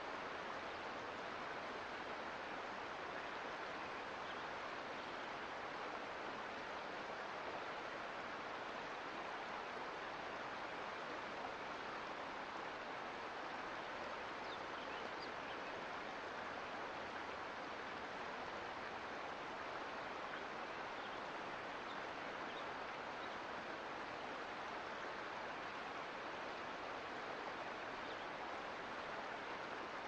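Sierra Nevada mountain creek flowing: a steady, even rush of water.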